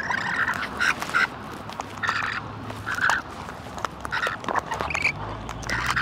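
Wild parrots calling with a run of short, harsh squawks, about one a second, with small clicks in between.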